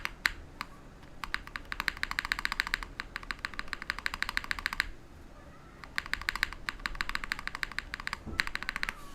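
Typing on a Bakeneko60 mechanical keyboard with Cherry MX Brown switches on an aluminum plate: runs of quick, crisp keystrokes, broken by short pauses about a second in and about five seconds in.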